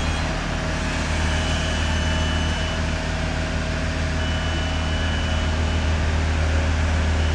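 A steady low engine-like hum with an even wash of background noise.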